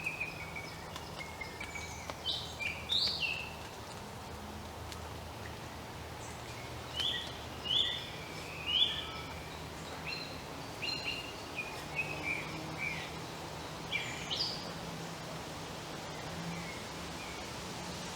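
Woodland songbirds singing in short phrases of quick, high chirps and whistled notes that come in several bursts with short gaps between them, over a steady background hiss.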